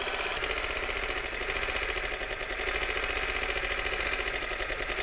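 Auto Cine portable 8mm film projector running on its 6-volt battery supply: the small motor and film-pull mechanism make a fast, even mechanical clatter. The owner thinks the batteries are weak and need replacing.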